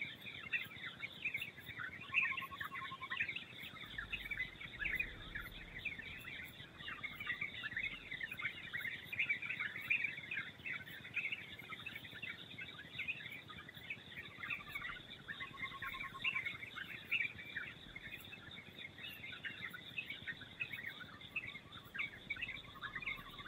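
Many birds chirping and twittering over one another without a break, with a few short lower trills now and then.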